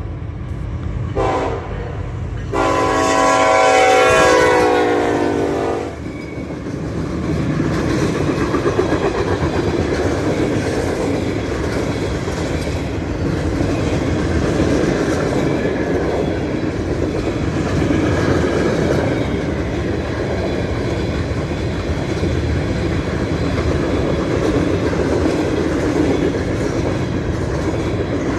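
Freight train horn sounding a short blast and then a long blast of about three seconds, followed by the train rolling past with a steady rumble and clatter of wheels and cars.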